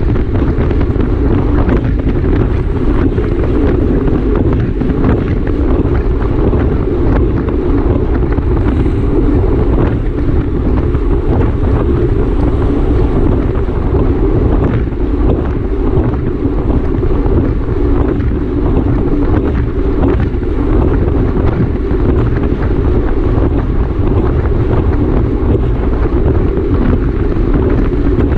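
Wind buffeting the microphone of a camera carried on a bicycle in a criterium race: a loud, steady rush that holds unbroken.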